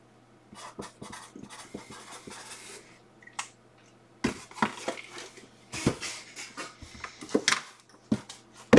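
Cardboard card boxes being handled and shifted on a tabletop: soft rustling for the first few seconds, then a series of separate sharp knocks and clicks as the boxes are moved.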